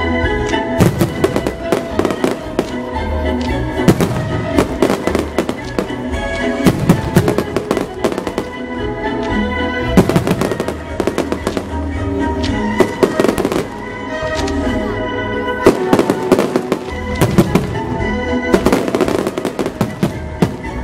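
Fireworks show: aerial shells bursting in dense runs of sharp bangs and cracks, with music playing underneath.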